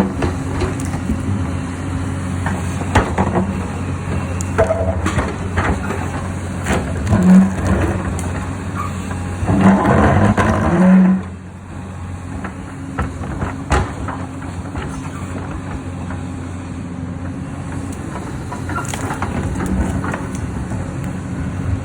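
Hyundai excavator working in stone: its diesel engine runs steadily under scattered sharp knocks of rock, with a louder rush of crunching rock for about a second and a half near the middle that stops suddenly.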